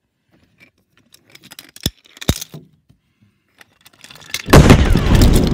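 A few scattered sharp clicks and knocks, two of them loud, then about four and a half seconds in a loud explosion sound effect: a sudden blast of noise with a deep rumble that carries on.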